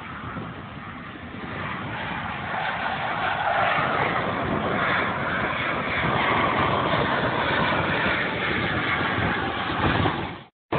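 Jet engine noise from Blue Angels F/A-18 Hornets making a smoke pass: a steady rushing noise that grows louder over the first few seconds, then cuts off abruptly near the end.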